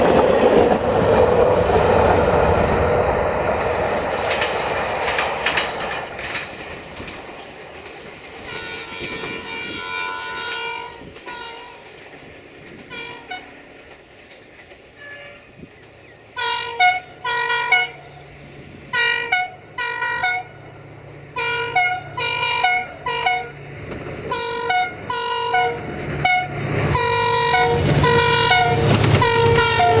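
Wheels of a passing diesel multiple unit clattering over the rails, fading over the first several seconds. Then a GM Class 64 diesel locomotive's multi-tone horn plays a long run of short blasts in a rhythmic, tune-like pattern with changing chords, over the rising rumble of the approaching engine. Near the end the horns and the passing train grow loud.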